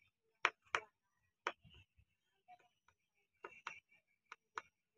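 Irregular short, sharp clicks and knocks, about a dozen spread unevenly, with dead silence between them.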